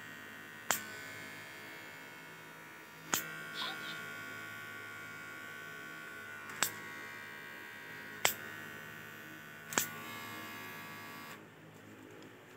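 Xiaomi Enchen electric hair clipper running with a steady buzzing hum. Five sharp clicks come at uneven intervals as its ring dial is turned, and the motor cuts off near the end.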